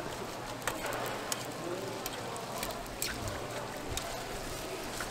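Oil sizzling on a flat griddle as sorghum hotteok fry under metal press discs: a steady sizzle with scattered crackles and pops.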